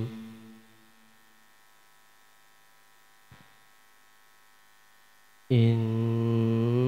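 Melodic Quran recitation into a microphone: a long held note ends at the start and its echo fades. A pause follows with only a faint steady mains hum from the sound system and a small click about three seconds in. The reciter's voice comes back suddenly about five and a half seconds in on a loud, held, wavering note.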